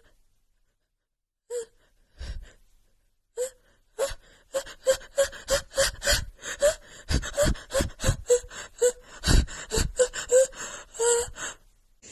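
A woman's sneeze buildup: a few separate sharp gasps, then from about four seconds in a rapid run of short, hitching gasps, about three a second, as she holds back a sneeze.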